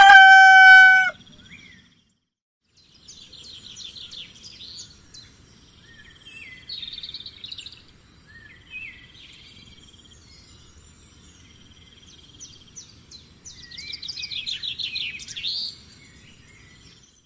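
A rooster crows, its call ending about a second in; after a short pause, small birds chirp and trill quietly over a faint steady hiss, with a denser run of chirps near the end.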